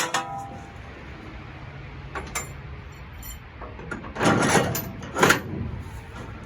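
Metal door-hinge hardware being handled and fitted: a few light clicks, then two louder clunking scrapes about four and five seconds in, over a low steady hum.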